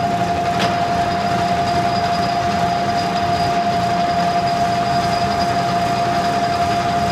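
Metal lathe running steadily with a constant whine, as a homemade insert boring tool starts a test cut in 1018 steel near the end.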